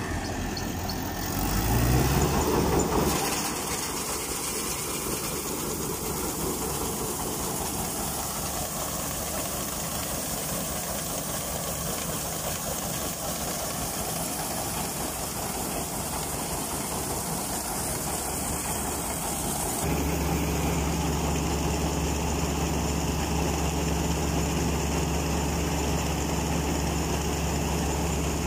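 Preet 949 combine harvester's four-cylinder engine and grain unloading auger running steadily. About two-thirds of the way through, the engine hum becomes louder and more even.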